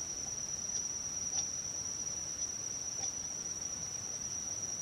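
Steady high-pitched insect chorus, with a few faint ticks.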